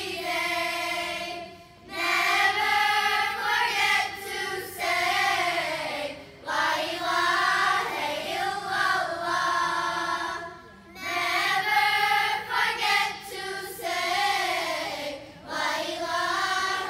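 A children's choir of girls singing an English-language nasheed together, in sung phrases of about four seconds with short breaks between them.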